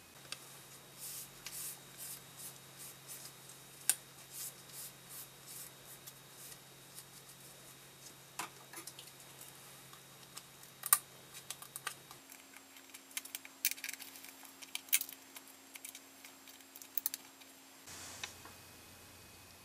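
Kitchen scissors snipping into a stiff sheet of dried kombu kelp: a long irregular series of short, crisp clicking snips.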